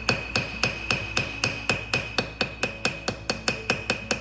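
Small hammer peening the annealed tool-steel pivot pin of a slip joint pocket knife, expanding the pin head to tighten the joint. Light, quick, even taps, about four to five a second, each with a bright metallic ring.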